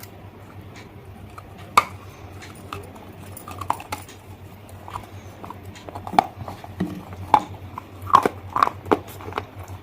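Close-miked crunching and chewing of hard, brittle pieces: irregular sharp cracks and snaps, sparse at first and coming faster and louder in the last few seconds, over a steady low hum.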